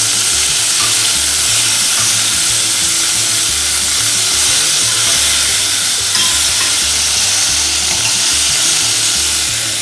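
Cubes of beef searing in hot oil in a pot, a steady sizzle while the pieces are turned over. The oil is on its own with no water, giving the meat a hard sear.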